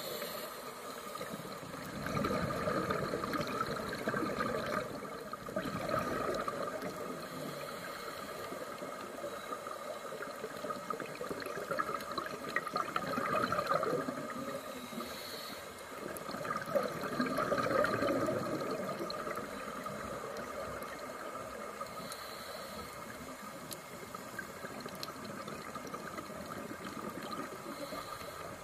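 Scuba divers' regulator bubbles recorded underwater: a bubbling rush that swells and fades several times, a few seconds apart, as a diver breathes out, over a steady underwater hiss.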